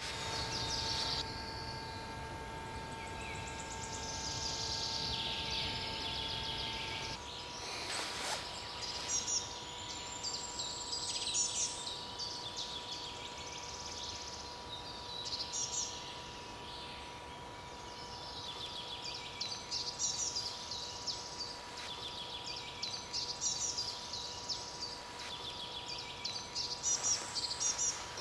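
Woodland birdsong: several small songbirds singing and calling in short, repeated high phrases, over a faint steady hum. A single click about eight seconds in.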